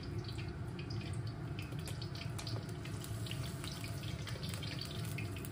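Starch-battered fish and shrimp pieces frying in hot oil in a wok: a steady sizzle with scattered crackles and pops, over a steady low hum.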